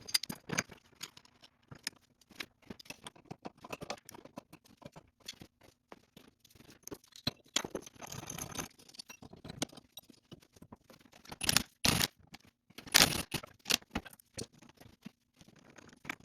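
Metal tools and parts clinking, clicking and scraping in irregular short knocks, with a few louder clanks near the end.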